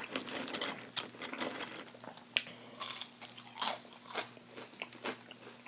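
Crunchy biting and chewing of fried takeout food, close to the microphone, in irregular crisp crackles.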